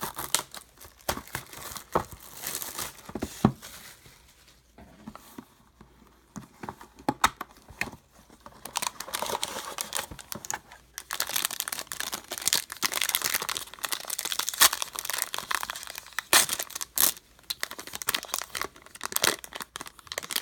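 Plastic wrapping crinkling and tearing as a trading-card hobby box and its pack are opened by hand, in uneven crackles and clicks. Quieter for a few seconds about four to eight seconds in, then busier crinkling.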